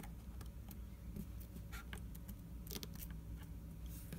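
A few faint clicks and scratches of a precision screwdriver turning tiny screws out of an opened iPhone 6s.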